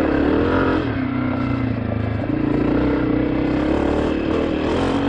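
Honda CRF250F's single-cylinder four-stroke engine running under throttle while the bike is ridden. The engine pitch rises in the first second, drops back and picks up again around two seconds in, and climbs once more near the end as the rider works the throttle.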